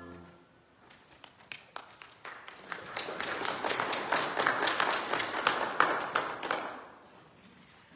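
Congregation applauding: a few scattered claps at first, building to steady applause that fades out near the end.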